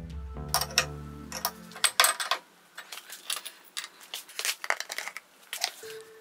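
Background music stops about two seconds in. Then comes an uneven run of sharp metallic clicks and clinks as the chrome filler cap is taken off the steel tank top of a hydraulic power unit, its retaining chain rattling, and a funnel is set in the filler neck.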